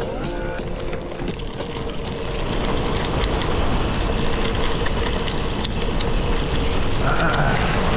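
Gravel bike rolling along a dirt trail: the Panaracer GravelKing SS 38 mm tyres rumble over gravel and wind buffets the GoPro's microphone, growing louder from about two seconds in, with scattered clicks and rattles.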